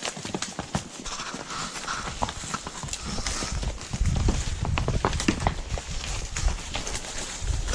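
Horse hooves clopping and knocking on rocky ground as horses walk through brush, with a low rumbling joining about four seconds in.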